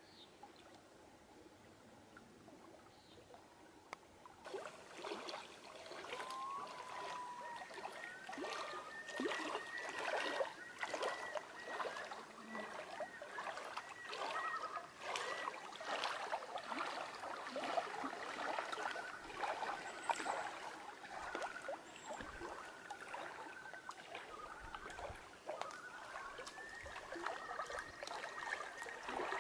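Water lapping and gurgling with many small splashes, faint at first and louder from about four seconds in.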